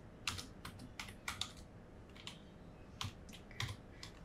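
Typing on a computer keyboard: a dozen or so irregular keystrokes, some in quick pairs, with short gaps between them.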